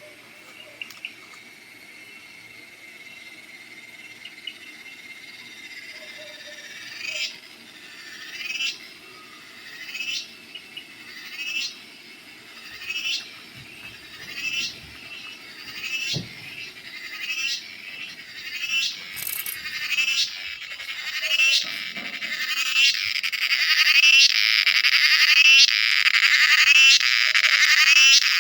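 Cicada calling: a faint steady whine at first, then rhythmic pulses about every second and a half from about seven seconds in, growing louder until they merge into a continuous loud buzz near the end.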